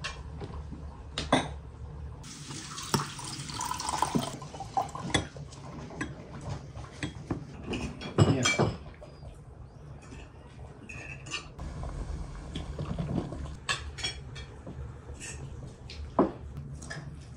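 Cutlery and dishes clinking and knocking: a spoon scooping food from a pot, forks and spoons on plates, glasses set down. About two seconds in, liquid is poured into a glass for about two seconds.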